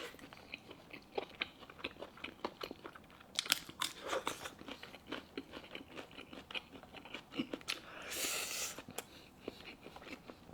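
Close-up chewing of soft braised pork hock tendon: a run of wet smacking clicks from the mouth, with a longer breathy slurping rush about eight seconds in.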